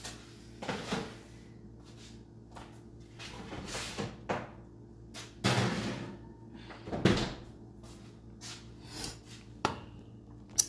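A string of separate knocks, bumps and rustles from things being handled in a kitchen, like cupboard doors or dishes being moved, with the loudest knocks about seven seconds in and just before the end.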